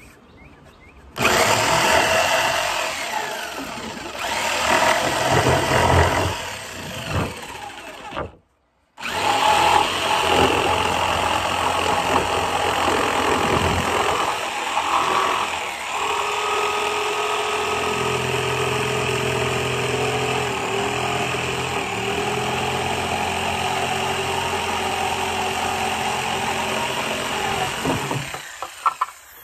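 Electric jigsaw cutting through a wooden board, its blade chattering in the wood over a steady motor whine. It starts about a second in, breaks off abruptly for a moment about eight seconds in, and stops just before the end.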